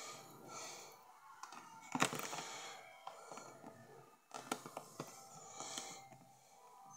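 Hair being picked and pulled out of the bristles of a paddle hairbrush: scratchy rustling with scattered sharp clicks and taps, the loudest about two seconds in and a cluster around four and a half seconds in.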